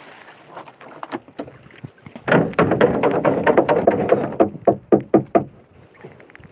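Wooden sticks of a gill net knocking and clattering against one another and the boat's side as the net is hauled aboard by hand. Scattered knocks at first, then a loud, dense run of clatter from about two seconds in until past five seconds.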